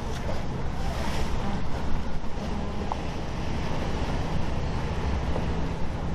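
Motor yacht passing under power: its engines running with a steady low hum, under the rush of its wake and wind buffeting the microphone.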